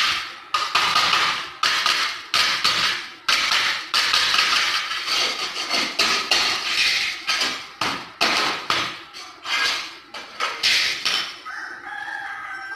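Hammer striking a wooden strip of a door frame again and again, sharp knocks roughly once a second with quicker runs in between. Near the end a rooster starts crowing.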